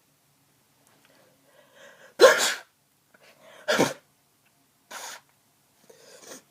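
Person with a heavily congested head cold sneezing: a short intake of breath, then a loud sneeze about two seconds in and a second one soon after. A shorter, weaker burst of breath follows, then soft breathing near the end.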